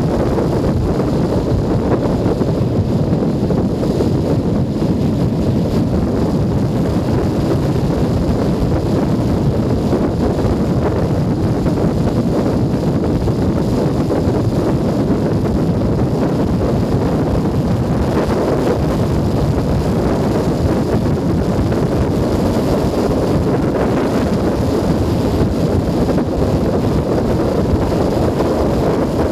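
Wind rushing steadily over a helmet-mounted camera's microphone while riding, mixed with the running of a Junak M12 Vintage 125 cc motorcycle's engine at a steady cruise.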